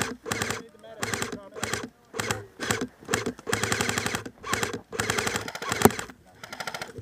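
Airsoft electric guns firing on full auto: a string of rapid bursts, one after another, with short gaps between them.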